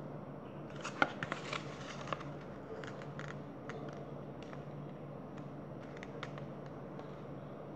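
A paperback picture book being handled and its pages turned: a cluster of papery rustles and clicks about a second in, then scattered light ticks, over a faint steady low hum.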